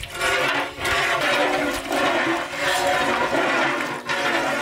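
Cooking oil poured in a steady stream from a bottle into a large empty metal cooking pot, splashing in the pot, with two or three brief dips in the flow. It stops abruptly near the end.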